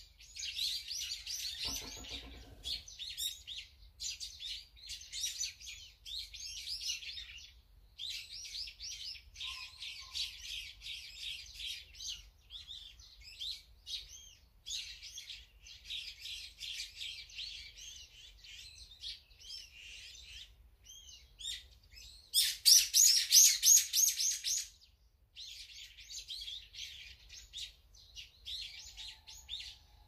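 Small songbirds chirping and twittering almost without pause, many short high notes overlapping. About 23 seconds in a louder, faster run of repeated notes lasts some two seconds, and a brief lower-pitched call sounds about two seconds in.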